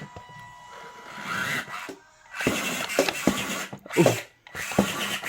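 Small electric motor and gears of a 1/24-scale RC4WD crawler truck whirring as it climbs over toys, with irregular knocks and clatters from about halfway through.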